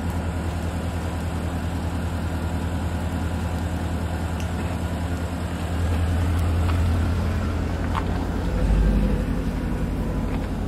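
A motor engine idling with a steady low hum, which grows louder about six seconds in.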